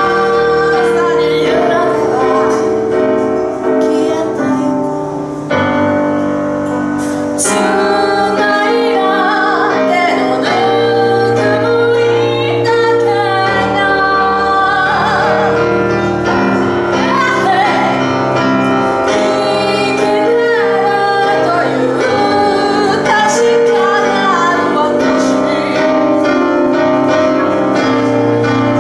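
A woman singing while accompanying herself on the piano, her held notes sung with vibrato over sustained piano chords.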